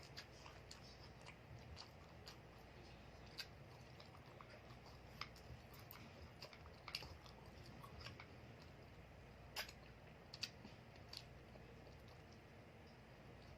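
Faint close-up eating sounds: quiet chewing with scattered small clicks, the loudest about two-thirds of the way through.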